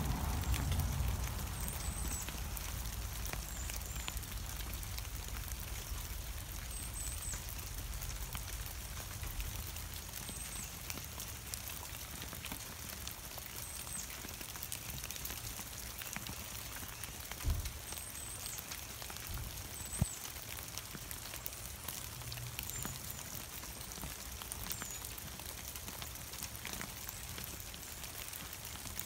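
Ice-glazed tree branches crackling as the ice melts: scattered light ticks and patters of falling ice and drips, with a couple of duller thumps in the second half.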